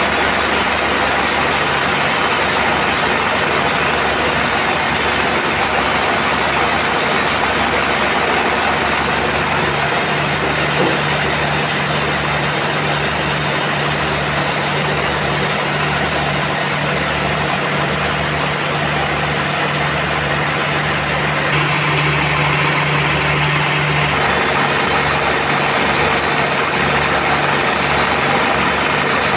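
Band sawmill running steadily, with an engine-like drone and a regular low pulsing. The higher hiss dies away about a third of the way in and returns near the end.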